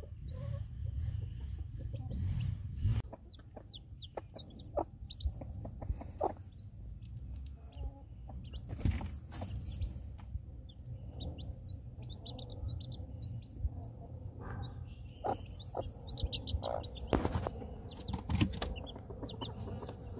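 Chicks a few days old peeping constantly, with broody hens clucking among them. A low rumble fills the first three seconds.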